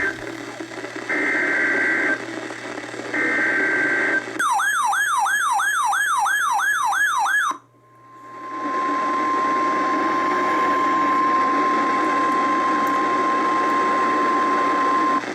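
NOAA Weather Radio Emergency Alert System (EAS) alert opening a severe thunderstorm warning. First come the last two of the three short SAME header data bursts, harsh digital screeches about two seconds apart. Next is a warbling tone sweeping up and down for about three seconds, then the steady 1050 Hz warning alarm tone held for about seven seconds, all over radio reception hiss.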